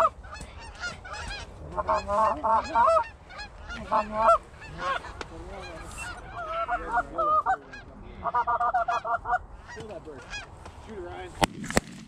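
Geese honking and clucking in quick runs of calls, then two shotgun shots near the end.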